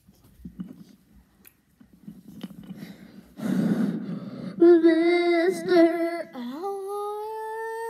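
A child's voice into a red toy microphone: first a loud rushing breath into the mic lasting about a second, then a long sung note. The note dips and slides up to a higher note, which is held.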